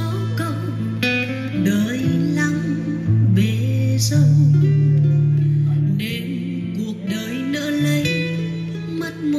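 Guitar music with singing and held deep bass notes, played through a set of Pioneer car speakers: cone woofers and dome tweeters lying unmounted on a table for a sound test.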